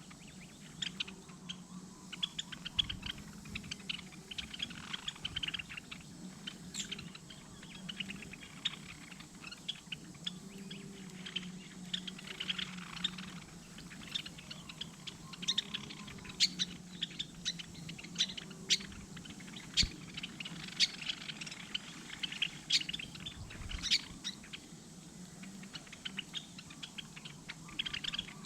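Small birds chirping: many short, quick calls throughout, over a low steady hum.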